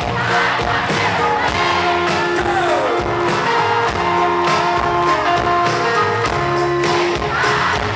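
Song's instrumental break: held notes over a steady drum beat, with one falling pitch glide about two and a half seconds in.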